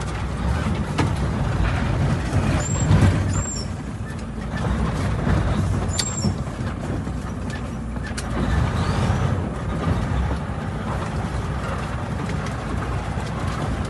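Vehicle driving on the road: a steady engine and road rumble heard from inside the cab, with a few faint clicks.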